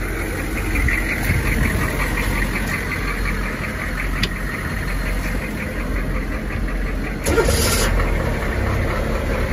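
Military truck's diesel engine, jump-started through slave cables, turning over and running rough with a rapid uneven rhythm, sounding like it does not want to run after standing unused a long time. A brief burst of hiss about seven seconds in.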